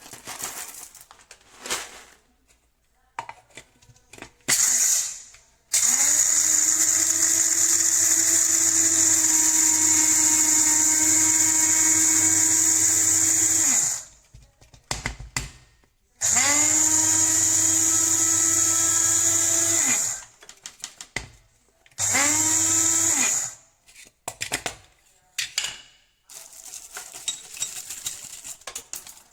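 Electric blade coffee grinder with stainless steel blades, its 300 W motor run in pulses with a high whine: a short burst, a run of about eight seconds, one of about four seconds, then another short burst. Each run rises in pitch as the motor spins up and stops abruptly, with knocks and rattles of handling between the runs.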